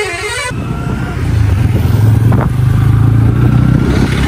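Bajaj Pulsar N160 motorcycle engine running steadily while riding along a road, its low hum growing stronger about a second in. A vehicle horn sounds at the start and cuts off about half a second in.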